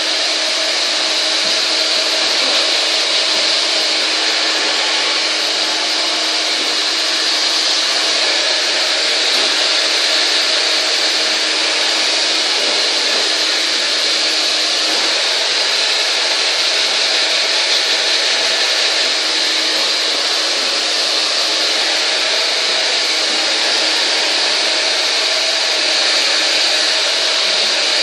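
Hand-held hair dryer running steadily, a continuous rush of air with a faint hum that fades about halfway through.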